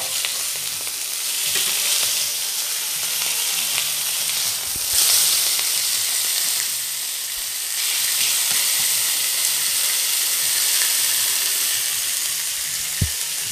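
Thin slice of beef sizzling in olive oil in a hot frying pan, a steady hiss that swells briefly about five seconds in. A single sharp tap near the end.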